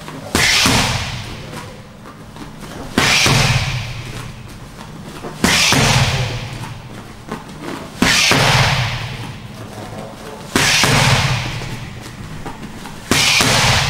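Boxing gloves landing left-right punch combinations on handheld Thai pads: six sharp smacks about every two and a half seconds, each followed by a hissing exhale of breath that fades out.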